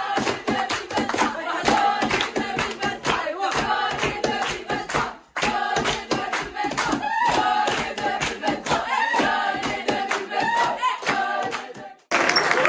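A group of teenagers singing together loudly while clapping their hands in rhythm. The sound drops out briefly about five seconds in and cuts off suddenly near the end.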